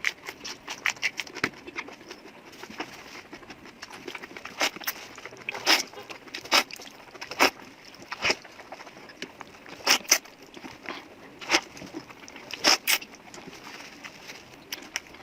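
A person eating noodles and meat close to the microphone: chewing with many short wet mouth clicks and smacks at an uneven pace, several of them louder.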